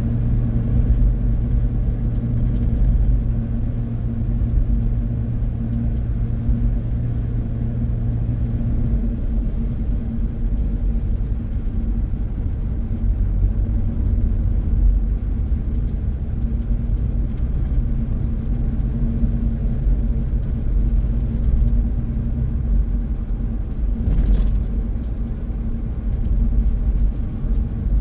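Car driving on a wet road, heard inside the cabin: a steady low rumble of engine and tyres, with a low hum that shifts lower about nine seconds in.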